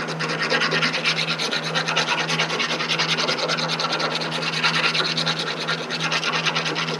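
Rapid, even back-and-forth scraping and rasping inside a metal door-hinge knuckle as it is cleaned of debris and old bushing remains before a new Delrin bushing goes in.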